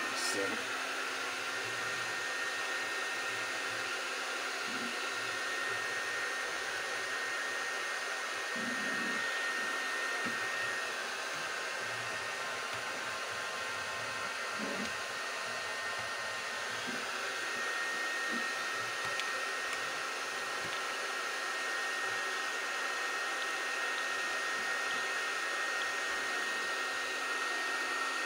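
Toy vacuum cleaner's small motor running steadily with a high, even whine, with a few faint knocks as it is pushed about.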